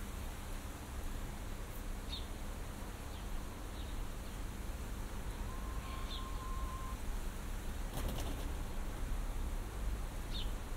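Outdoor morning ambience: a steady windy rumble and hiss, with small birds giving short high chirps a handful of times. A brief steady high note sounds about halfway through, and a brief flutter of sharp sounds comes about eight seconds in.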